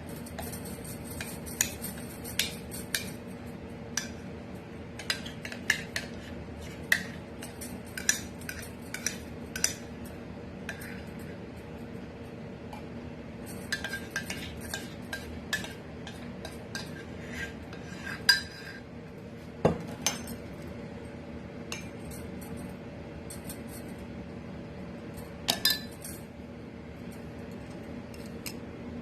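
A spoon scraping and clinking against mugs at irregular intervals as thick cake batter is spooned from one mug into another, over a steady low hum.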